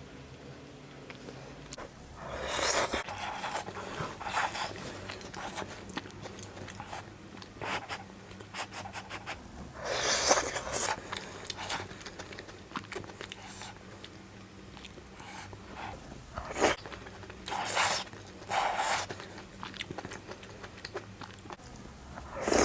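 A person eating hot pot close to the microphone: chewing and slurping, with small clicks. There are several louder slurps, the loudest about ten seconds in.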